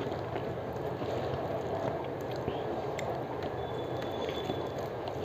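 Fingers mixing rice with dal and aloo posto on a metal plate: soft squishing and faint scattered clicks over a steady background noise.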